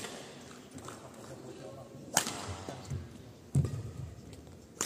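Badminton racket strings striking a shuttlecock in a rally, three sharp hits about two and a half seconds apart, the middle one the loudest and ringing briefly in the hall. Low thuds of players' footwork on the court come between the hits.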